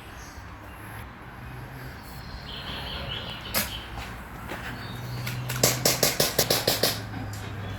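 Airsoft guns firing: a single sharp shot a little past three seconds in, then a rapid string of about ten shots, roughly seven a second, near the end.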